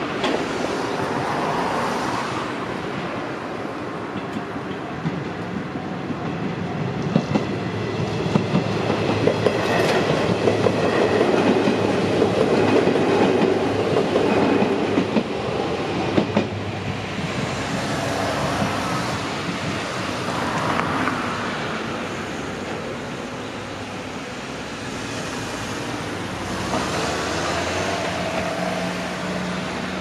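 Izuhakone Railway Sunzu Line electric train passing over a level crossing, its wheels clattering over the rail joints. It is loudest from about eight to seventeen seconds in, then fades.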